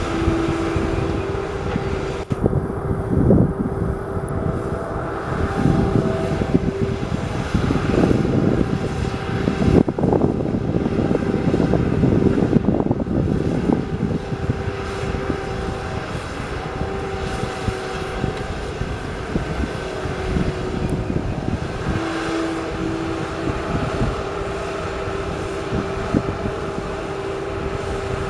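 Heavy construction machinery running: a steady engine rumble with a constant whine on top, swelling louder a few times.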